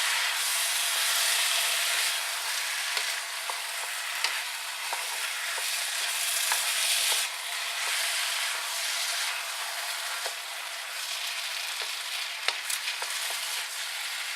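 Fried rice with chicken and egg sizzling in a wok, with the hiss easing a little about halfway through. A utensil scraping and clicking against the wok as the rice is stirred.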